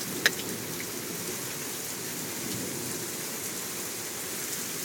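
Steady rain falling, with a single sharp click a moment after it starts.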